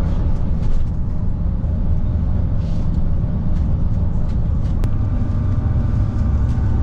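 Steady engine and road rumble heard from inside the cabin of a moving coach bus.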